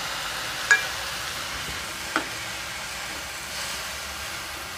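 Chopped tomatoes and onions sizzling in hot oil in a nonstick kadai as they are stirred with a steel spoon. The spoon clinks against the pan twice, once under a second in and again about two seconds in.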